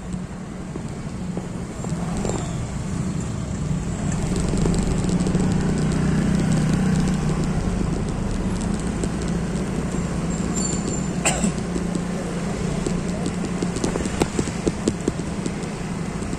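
Street sound: a motor vehicle engine running as a steady low hum that grows louder about four seconds in. Short sharp steps or knocks come near the end.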